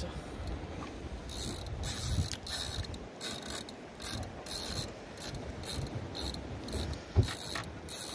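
Spinning fishing reel working against a hooked fish on a hard-bent rod, whirring and clicking in short bursts about twice a second. A single low thump sounds about seven seconds in.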